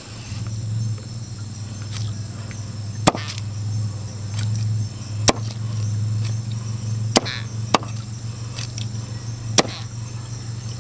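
Heavy knife chopping through a baung river catfish on a wooden chopping block, cutting it into steaks: a series of sharp chops a second or two apart. A steady low hum runs underneath.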